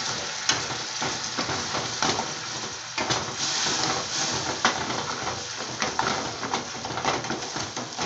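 Caramel sizzling in an aluminium ring pudding mould on a gas burner while a spoon stirs it, the spoon scraping and clicking against the metal pan again and again.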